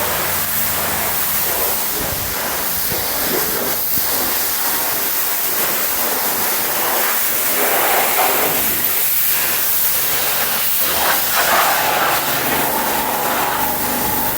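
Steady hissing spray of a self-service car wash's high-pressure water jet.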